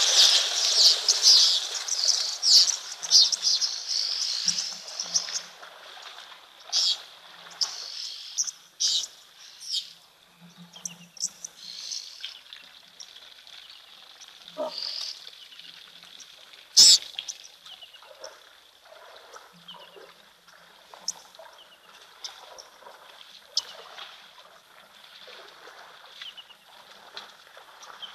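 Herd of Cape buffalo wading through a waterhole: dense splashing for the first few seconds, dying down to scattered splashes and drips. A single sharp knock comes a little past the middle.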